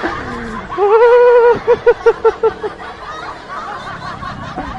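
A rider's laughter: a drawn-out voiced cry about a second in, then a quick run of about six short 'ha's, with steady riding noise under it.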